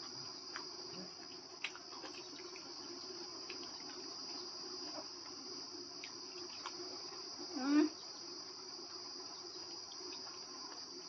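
A steady, high-pitched chorus of crickets chirring, with scattered faint clicks and a short hummed "mm" from a person about three-quarters of the way through.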